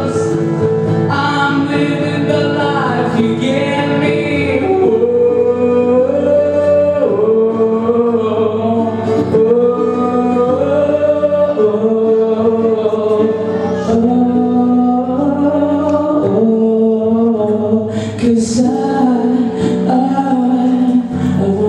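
Man singing a Christian love song over instrumental accompaniment, holding long, sliding notes without clear words.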